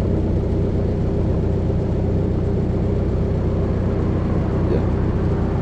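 Lincoln SA-200 engine-driven welding machine running steadily, its engine note unchanging.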